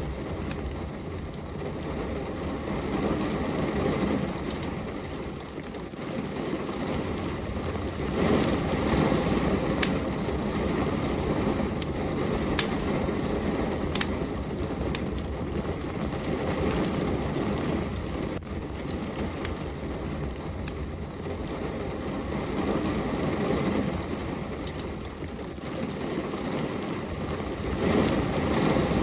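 Steady rain with a wood fire burning, giving occasional sharp crackles and pops, about a dozen scattered through. The rain's hiss swells and eases gently.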